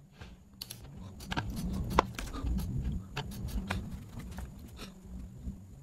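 Irregular clicks and taps of a computer keyboard and mouse, over a faint low hum.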